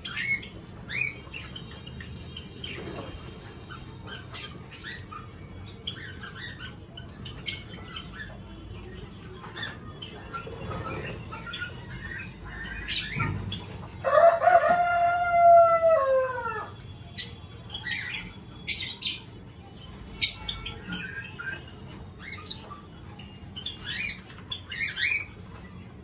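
Small aviary birds (Java sparrows and finches) giving short, high chirps scattered throughout. About halfway through, a louder, longer drawn-out call is held for a couple of seconds and then falls in pitch at the end.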